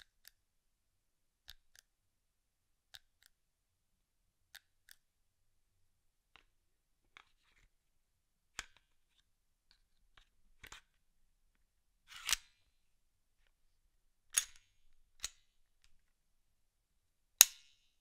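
Smith & Wesson M&P9 M2.0 pistol being handled, its slide and magazine worked: a series of sharp metallic clicks. They start as quiet paired clicks about every second and a half, then turn into louder snaps in the second half, the loudest near the end.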